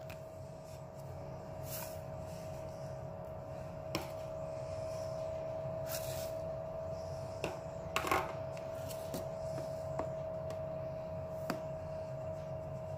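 A few light clicks and knocks from plastic spice and flour containers handled and tipped over a bowl, over a steady background hum.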